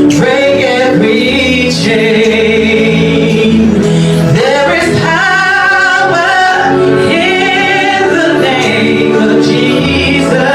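Worship song: sung vocals with vibrato over a steady instrumental backing.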